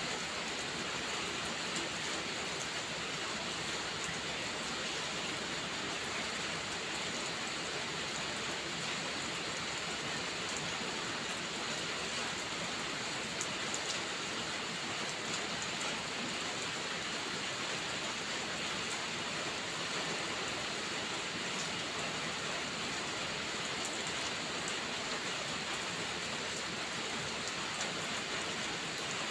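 Steady heavy rain falling as an even hiss, with a few faint sharp clicks here and there.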